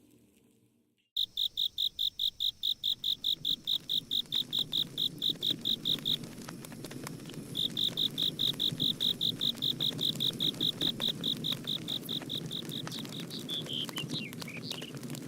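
Campfire crackling with many small pops, under a loud high-pitched chirp repeated about six times a second. The chirping breaks off about five seconds in, starts again a second and a half later, and gives way near the end to a few short gliding whistles.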